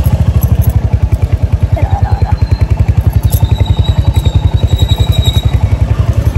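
Motorcycle engine idling close by, a steady low pulse of about a dozen beats a second.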